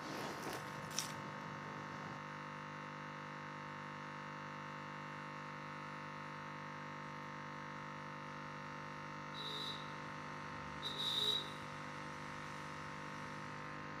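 A steady background hum of several fixed tones, with a few faint clicks of newspaper being nibbled in the first second and two brief high squeaks, about nine and eleven seconds in, the second one louder.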